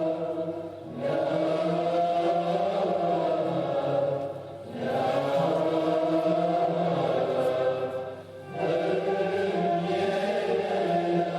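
Classical Turkish vocal music: voices singing long, held, ornamented phrases together, broken by short breaks three times.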